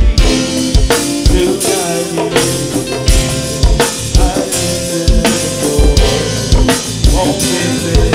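Hip-hop beat playing without vocals: a steady kick drum about twice a second with drums and pitched instrument lines over it.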